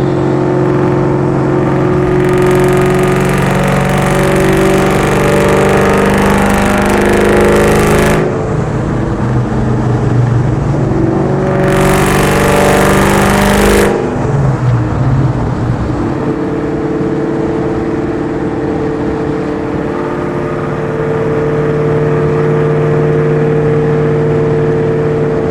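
Cammed, Whipple-supercharged 4.6 L V8 of a Ford SVT Terminator Cobra with Borla ATAK exhaust, running on the road at fairly steady speed, its pitch shifting a little around the middle. Two stretches of loud rushing noise of a few seconds each lie over the engine sound.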